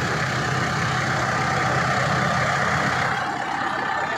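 Hindustan tractor's diesel engine idling steadily.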